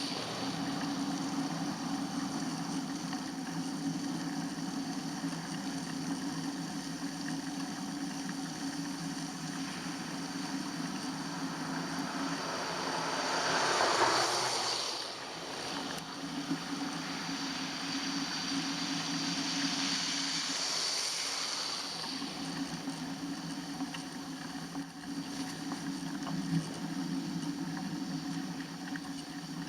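Riding noise from a bicycle on snowy, slushy roads: a steady low hum under wind and tyre hiss, with a louder swell of noise rising and falling about fourteen seconds in and a smaller one around twenty seconds.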